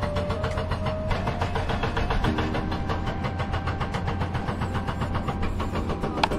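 Bus engine idling steadily, a low, even rumble while the bus stands waiting at a road blockage. A short sharp click near the end.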